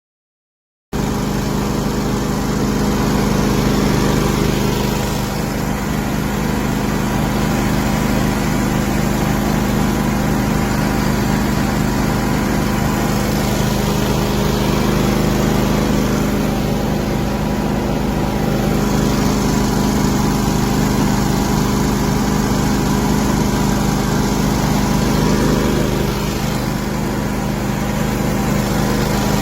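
Small engine driving a rotary automatic crop sprayer, running steadily at a constant speed. It comes in abruptly about a second in.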